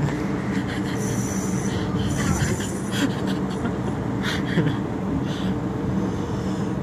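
Steady low drone of a ship's engine, with a fishing reel whirring in short spells as a hooked fish is fought on a bent rod.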